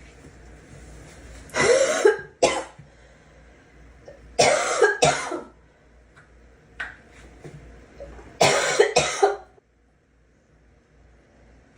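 A girl coughing in three bouts, each of two or three coughs, a few seconds apart.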